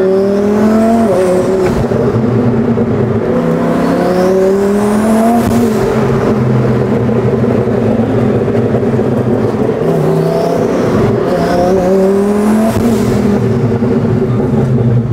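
A modified 1400-horsepower Lamborghini Huracán's V10 engine accelerating through the gears, heard from inside the cabin. Its pitch climbs and drops back at each upshift, several times.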